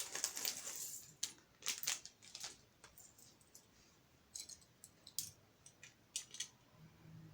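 Plastic Lego pieces being handled and pressed together: a string of small sharp clicks and light rattles, dense in the first two seconds, then scattered clicks a few seconds in.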